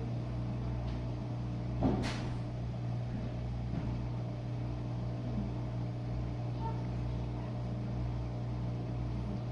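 Jenn-Air dishwasher running a steady low hum, most likely its pump draining the wash water, with one sharp knock about two seconds in.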